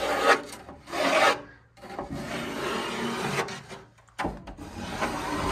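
Pencil scratching along the underside of a plywood deck in about four strokes, the longest near the middle, marking a line along the hatch combing.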